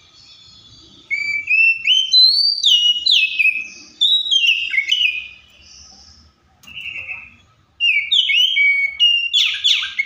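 Oriental magpie-robin singing: loud, clear whistled phrases of quick sliding notes, starting about a second in and broken by short pauses.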